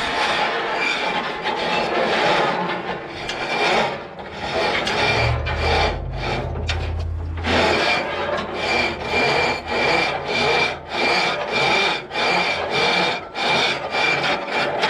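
A hand tool scraping back and forth on metal in regular rasping strokes, about two a second in the second half, with a brief deep rumble in the middle.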